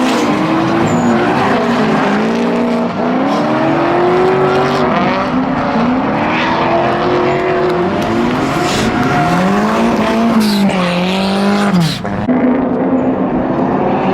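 Drift cars' engines revving hard, their pitch swinging up and down with the throttle, over tyre squeal and skidding noise. The sound changes abruptly about twelve seconds in.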